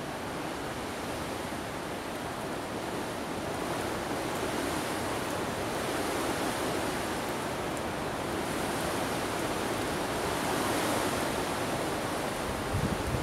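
Outdoor wind noise: a steady rushing hiss that swells and eases, with a brief low buffeting rumble near the end.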